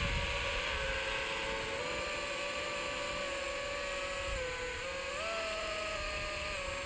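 FPV quadcopter's electric motors and propellers whining in flight, the pitch dipping and rising with the throttle, over low wind rumble on the microphone.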